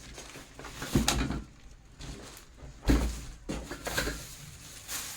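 Parts of a baby high chair being unpacked and handled: a rustle of packaging with two sharp knocks, about a second in and again about three seconds in, as pieces are set down.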